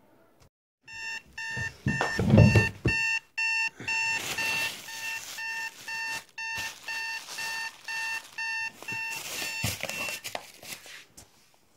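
Phone alarm beeping: a rapid run of short, identical electronic beeps, about two a second, that starts about a second in and stops about ten seconds in. Blanket rustling and a thump about two seconds in.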